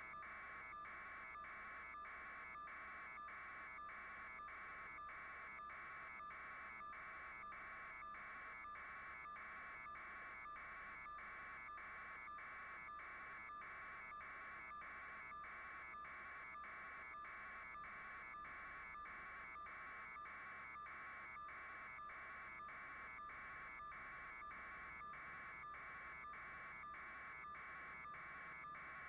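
Faint, steady electronic buzz, broken by a regular flutter about twice a second.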